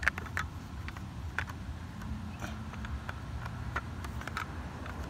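Scattered light clicks and knocks of hands working at a plastic cover on a metal blade, over a low steady rumble.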